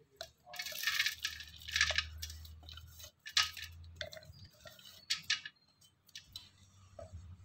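Coarsely ground urad dal being scraped out of a steel mixer jar and dropped into a large steel vessel of dry spices, in several short bursts.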